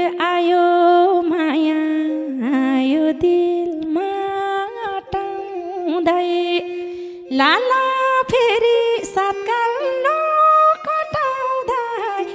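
Nepali dohori folk music interlude: a sliding, wavering melody over a steady held drone note, with the drum dropping out. About seven seconds in, a new, louder phrase begins.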